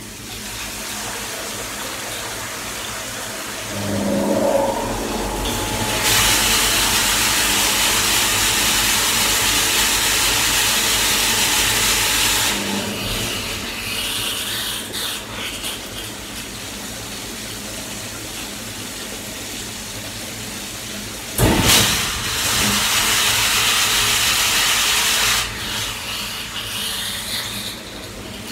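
Water gushing through a diesel particulate filter in a cleaning machine and splashing onto a metal grate. A louder hissing rush starts about six seconds in and eases off around twelve seconds. After a sharp knock a little past twenty-one seconds it comes back for a few seconds, then drops to the steady flow again.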